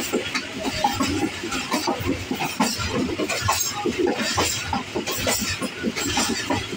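Passenger coach running along the track, heard from its rear end: a steady rumble of wheels on rail with continual irregular rattling and clinking from the coach.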